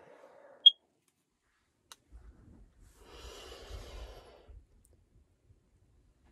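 One long, deep, airy breath about three seconds in, taken as part of a breathing warm-up. A very brief, sharp high blip sounds just under a second in.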